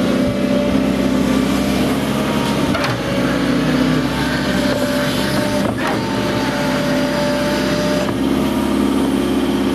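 Volvo EC140 tracked excavator's diesel engine running steadily under work, with a steady whine over it, while the arm and bucket move. A couple of light knocks come through about three and six seconds in.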